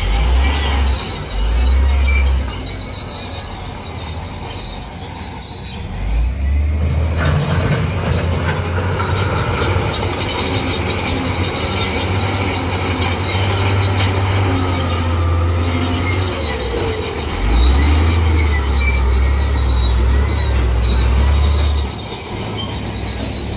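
Heavy earthmoving machinery at work: a diesel engine running under varying load, rising about seven seconds in and easing near the end, with continual high-pitched metallic squealing over it.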